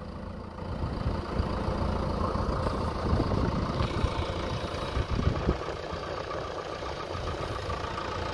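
Diesel engine of a JCB 3DX backhoe loader running steadily as its front loader arm lifts a heavy concrete culvert pipe, a low rumble that swells slightly a couple of times.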